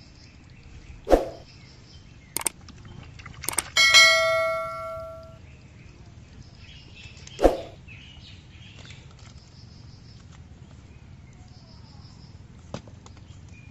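Subscribe-button sound effect: two quick clicks followed by a bright bell ding that rings out and fades over a second or so, about four seconds in. Two sharp knocks, one about a second in and one past the middle, and faint bird chirps underneath.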